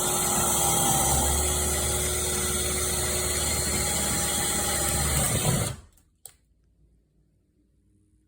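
Small handheld power tool motor running steadily for about six seconds, then cutting off, followed by a single sharp click.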